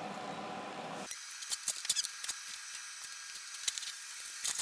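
A faint steady hiss, then after about a second faint irregular clicks and rustles: gloved hands handling and holding a flattened copper backing piece against the steel wheelhouse repair panel.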